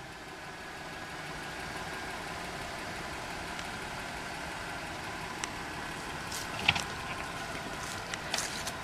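A car engine running steadily, with a few short clicks and knocks about two-thirds of the way through and near the end.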